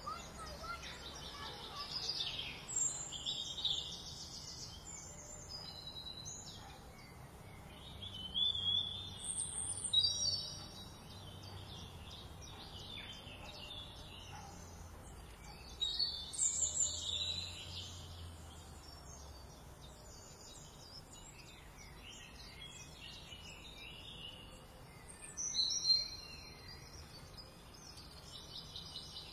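Several songbirds chirping and whistling in short bursts, in clusters that are loudest around the 9, 17 and 26 second marks, over a faint steady low hum.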